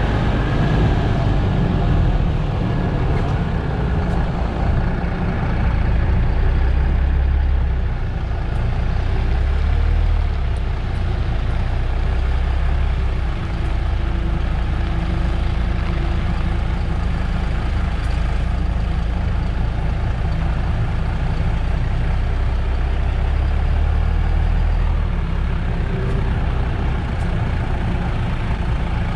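Diesel engine of a MAN Lion's City GL NG 323 articulated bus running, heard from outside the bus, a deep steady rumble that swells and eases a few times.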